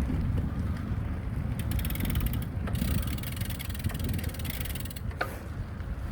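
Wind rumbling on the microphone as a carbon road bike is ridden. About one and a half seconds in there is a second of fast, even ticking from the bicycle's freehub as it coasts, followed by a few seconds of hiss.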